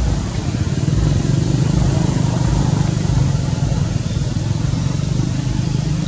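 Steady low rumble of a motor vehicle engine running, a little louder from about a second in.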